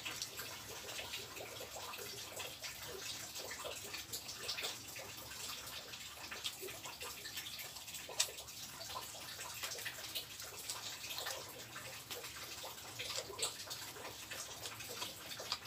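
Steady hiss of rain falling, with small wet clicks and smacks of eating by hand: fingers mixing rice and pulling apart fish in sambal.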